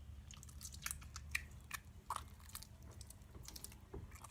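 Overactivated slime being squeezed and worked by hand, giving irregular, sticky clicks and crackles as the wet, lumpy slime fails to come together.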